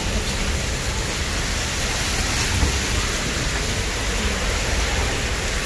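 Heavy downpour of rain mixed with hail, a steady even hiss.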